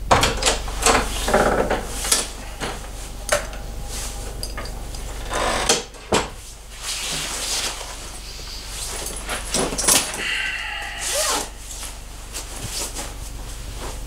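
A room door opening and closing, then a string of knocks and clicks and the rustle of a padded nylon jacket being taken off.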